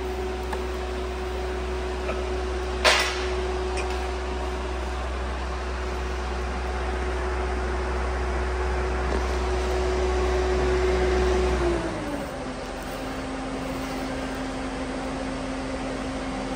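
800-amp engine-driven welder (Air Pak) running steadily at high speed, then stepping down to a lower idle about twelve seconds in. A single sharp clank about three seconds in.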